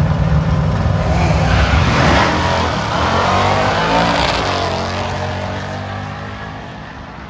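A 1967 Plymouth Barracuda drag car with a 440 cubic-inch big-block V8 and a second car launching off the start line at full throttle, the engines rising in pitch as they pull away. The sound fades steadily as the cars run off down the track.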